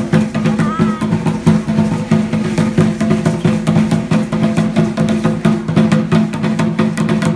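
Live Aztec dance percussion: a deep drum beating fast and steady under a dense, even rattle of clicks, with a brief wavering high tone about a second in.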